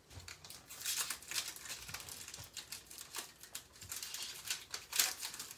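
Hockey card packs being opened and handled at a table: wrappers crinkling and tearing, and cards rustling and clicking against each other as they are flipped through, in a quick, irregular run of small crackles.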